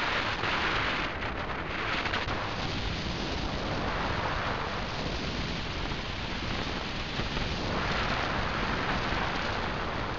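A car driven at speed, heard through its onboard camera: a rough, noisy rush of engine, wind and road noise with no clear engine note, swelling and easing about three times as the car accelerates and slows.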